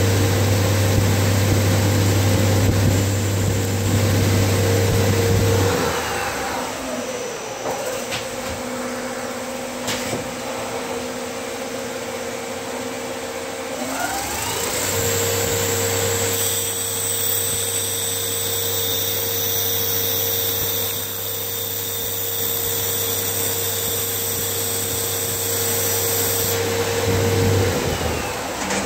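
Whacheon CNC slant-bed lathe running while turning and drilling Delrin, with a steady machine hum. Twice the pitch glides upward as the spindle changes speed between operations: about six seconds in and again near the middle. A few short clicks come in between, and a high hiss joins for about ten seconds in the second half.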